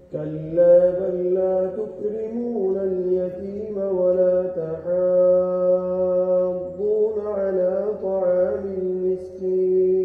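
A male imam chanting Quran recitation in slow, melodic tajweed, drawing out long held notes with ornamented turns between them.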